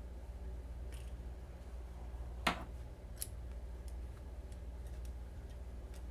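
Balisong (butterfly knife) being handled: a sharp metallic click about two and a half seconds in, a second click shortly after, then a few faint ticks, over a steady low hum.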